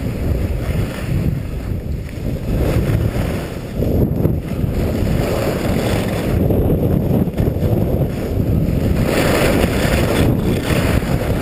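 Wind buffeting the microphone of a camera on a downhill skier, a steady low rumble, with the hiss of skis sliding over packed snow that grows brighter about nine seconds in.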